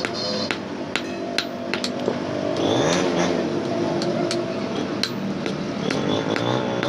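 A blacksmith's hand hammer strikes hot iron held in tongs on a steel anvil block, forging an axe head, in sharp, ringing blows about two a second.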